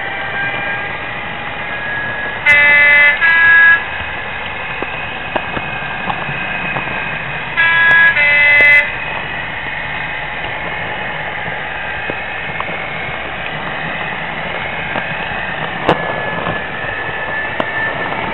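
OO gauge model diesel locomotive's DCC sound decoder playing a steady diesel engine sound, with its two-tone horn sounded twice, about five seconds apart, each blast changing note halfway through.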